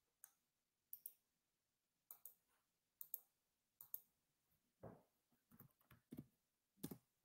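Faint clicking of a computer mouse or keyboard: sharp clicks, often in quick pairs, about one a second. A few duller taps and knocks follow in the last two seconds.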